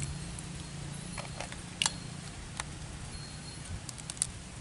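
Sharp clicks and small cracks of raw sea crab shells being pried and snapped apart by hand over a steel bowl of water, a few spaced out, then a quick cluster near the end.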